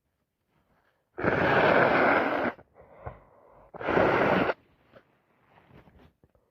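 A person with a head cold blowing a congested nose hard, twice: a long blast of over a second, then a shorter one, with a short breath in between.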